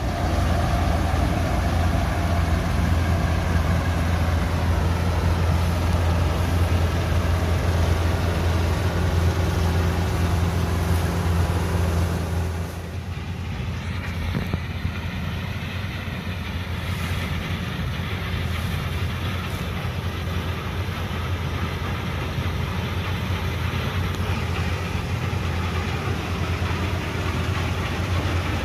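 Deutz-Fahr M 2385 combine harvester running steadily with a deep engine hum and the rush of its working machinery. About twelve seconds in the sound drops somewhat in level and stays steady after that.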